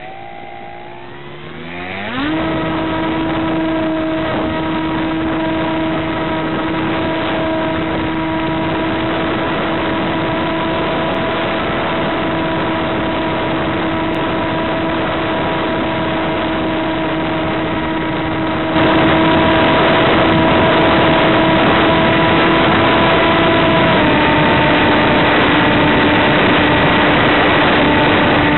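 Multiplex Easy Star model plane's electric motor and propeller spinning up for takeoff, the whine rising in pitch about two seconds in, then running steadily at high throttle with a hiss of airflow. The hiss grows louder about two-thirds of the way through, and the motor's pitch drops slightly near the end as the throttle eases back.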